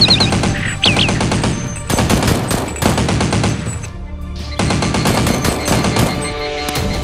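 Rapid automatic gunfire sound effects, a fast run of shots dubbed over toy Nerf blasters, with background music underneath. The firing breaks off briefly about four seconds in, then resumes.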